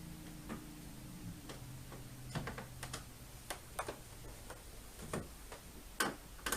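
Irregular small clicks and taps of a Phillips screwdriver and metal screws being worked into a plastic TV stand base, about a dozen in all, the loudest near the end.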